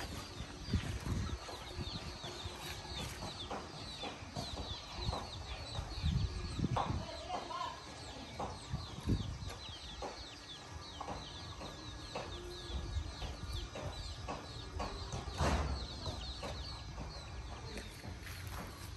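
Farmyard chickens clucking amid a constant stream of short, high, falling chirps, with a few scattered knocks.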